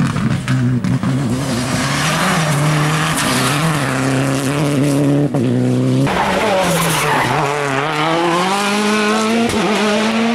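Rally car engines working hard through gear changes, the pitch climbing and falling back with each shift. About six seconds in the sound switches abruptly to another car, whose engine note drops as it slows for a corner, then climbs steadily as it accelerates out.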